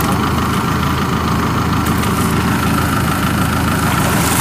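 Diesel engine of farm machinery idling steadily, a constant even rumble with no change in speed.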